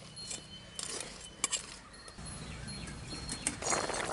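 A metal spoon clinks a few times against an aluminium pot of crab curry. Near the end the curry comes to a full boil with dense bubbling.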